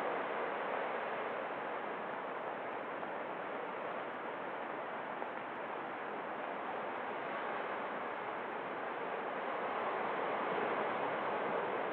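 Steady rushing wash of water: waves washing against a shoreline.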